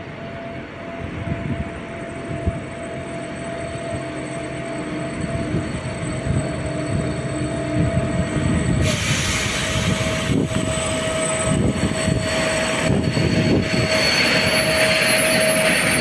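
Slovenian class 363 electric locomotive hauling tank wagons approaches and passes close by, growing steadily louder. A steady hum runs over the rumble of the wheels, and from about halfway a hiss of wheels on rail joins in.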